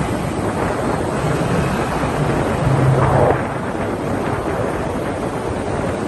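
Wind buffeting the microphone: a steady rumble and rush, with a louder gust about three seconds in.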